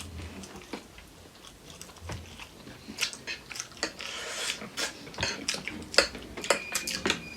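Close eating sounds of chicken feet and noodles being bitten and chewed, with many sharp clicks, smacks and crunches that grow busier from about three seconds in.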